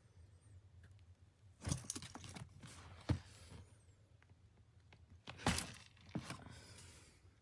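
A few scattered sharp knocks, four or five spread over several seconds, over a low background hum.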